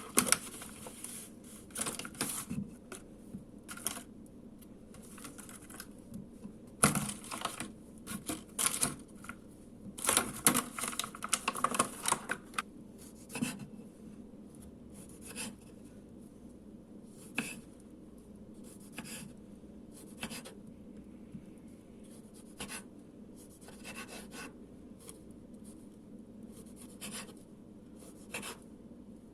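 Irregular rustling, scraping and light tapping of things being handled, coming thick and fast for a few seconds in the middle, then sparser.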